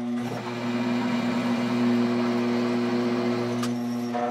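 Homemade milling machine's spindle motor running with a steady electric hum, turning a 9.5 mm drill against a metal block that it is not cutting. A brief click about three and a half seconds in.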